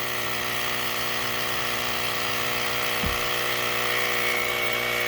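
Portable battery-powered tire inflator running steadily, its small compressor pumping up a flat four-wheeler tire. There is a brief low thump about three seconds in.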